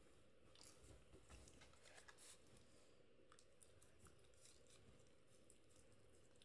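Near silence: room tone with a few faint, scattered small rustles and ticks, mostly in the first couple of seconds.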